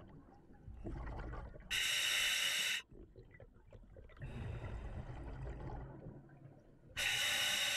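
Scuba diver breathing through the regulator of a full face mask. There are two sharp-edged hisses of inhaled air, about a second each and about five seconds apart. Before each comes a quieter, lower bubbling of exhaled air.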